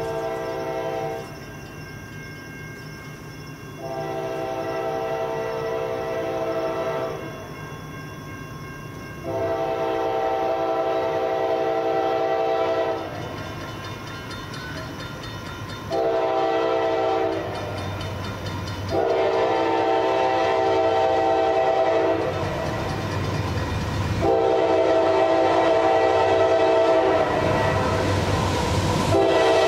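Freight locomotive's air horn, several notes at once, blowing the grade-crossing signal of long, long, short, long blasts and starting the pattern again as the train approaches. The horn grows louder, and the low rumble of the locomotive's engine rises beneath it in the last third.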